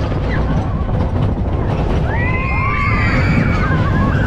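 Riders screaming, high wavering cries starting about halfway in, over the steady loud rush of wind and rumble of an SDC Windstorm roller coaster train in motion.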